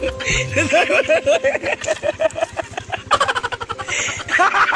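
A man laughing hard and uncontrollably, a rapid cackle of short high 'ha' bursts about five a second, with a brief break about three seconds in.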